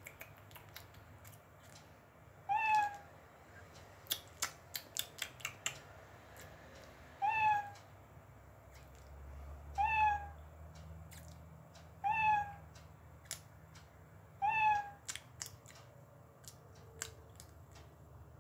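Short kitten-like mews, five in all at intervals of a few seconds, each brief and dipping slightly in pitch. Scattered light clicks fall in between, several of them close together about four to six seconds in.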